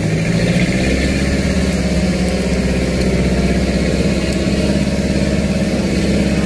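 Fishing boat's engine running steadily at an even, low idle.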